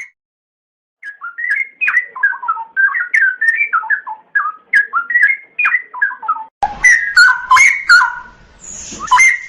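Songbird singing: a fast, varied run of short whistled and chirping notes, starting about a second in and getting louder near the end.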